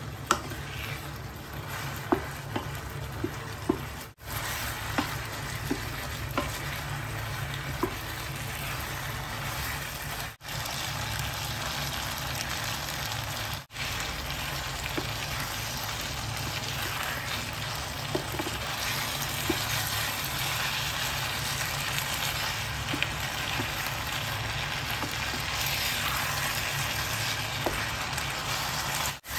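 Shrimp and vegetables sizzling steadily as they are stir-fried in a nonstick frying pan, with a wooden spoon clicking against the pan now and then, mostly in the first several seconds. The sizzle breaks off briefly three times.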